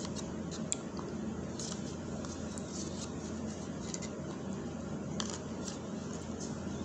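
Small spoon scraping and clicking against the inside of a plastic cup of oatmeal: short, irregular clicks over a steady low hum.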